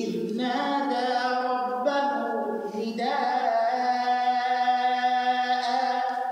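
A man reciting the Quran in Arabic in melodic tajweed style, moving between held notes in short phrases and then sustaining one long note through the second half.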